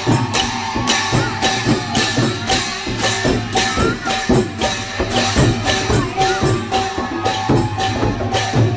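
Lively music with a steady beat: sharp cymbal-like strikes about twice a second over drums and a held droning tone.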